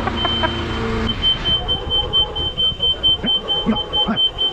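Scissor lift's motion alarm sounding as the platform is lowered. A steady high tone and a hum stop about a second in, then the high tone repeats as rapid beeps, about four a second.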